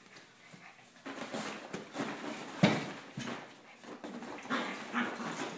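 Puppies play-fighting on a tile floor: scuffling and rustling in bursts, with one sharp knock about two and a half seconds in.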